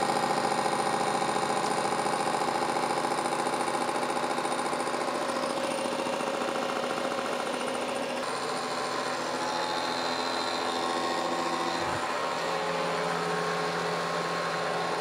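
Kearney & Trecker horizontal milling machine running an indexable face mill, with a steady hum from its spindle drive. About eight seconds in, the inserts start cutting into the hardened steel rack and the sound changes as the cut builds up.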